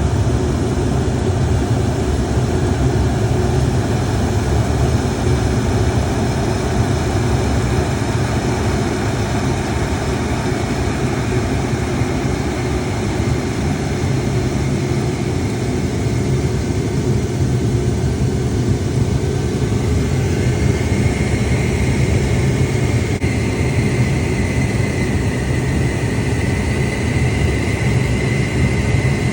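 Boiler burner running, a steady low rumble; a faint high whine comes in about twenty seconds in.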